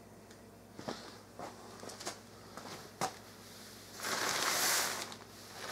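Rustle of a deflated airblown inflatable's thin fabric being grabbed and handled, a burst of about a second near the end, after a few scattered knocks.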